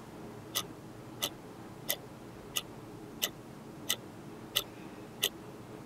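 Clock ticking steadily, about three ticks every two seconds, marking time passing during a wait.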